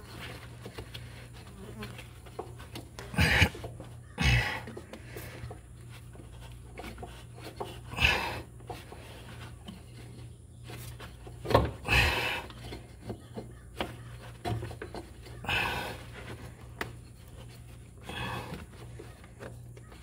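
A man breathing hard with effort, a short heavy breath out every few seconds, over a steady low hum.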